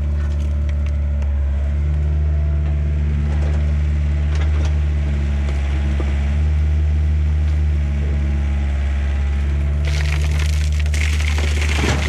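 1990 Yanmar B50 excavator's diesel engine running steadily. Near the end, a bucketful of dirt and stones spills from the bucket onto a corrugated plastic culvert pipe with a crunching clatter.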